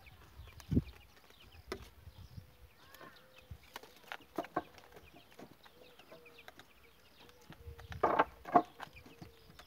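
Chickens clucking, with two louder calls near the end, over scattered light knocks and taps.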